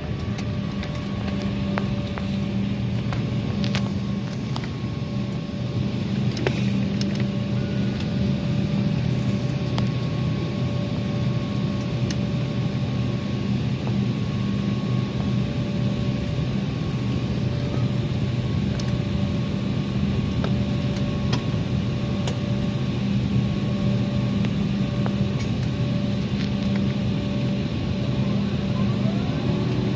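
Jet airliner cabin noise as the plane rolls out after landing and onto a taxiway: a steady engine hum with several held tones over a low rumble, growing a little louder about six seconds in.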